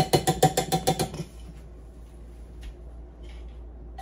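Rapid, even clinking of a utensil against a stainless steel mixing bowl, about eight strokes a second, stopping about a second in; after that only a few faint clicks.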